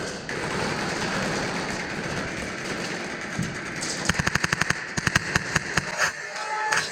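Airsoft guns firing: after a few seconds of steady noise, a rapid full-auto burst of sharp cracks at about ten to twelve shots a second, followed by shorter bursts and single shots.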